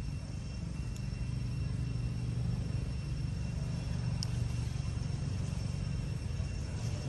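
A low, steady rumble that swells slightly about two seconds in, with faint steady high-pitched tones over it and one small click about four seconds in.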